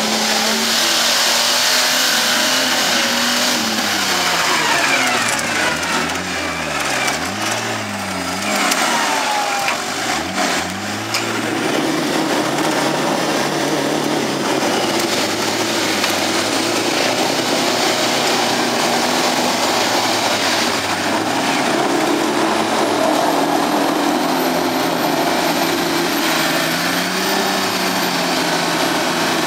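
Nissan Patrol's diesel engine revving up and down repeatedly for the first ten seconds or so, then running at steadier, higher revs under load as the truck winches itself through deep mud on its front winch cable.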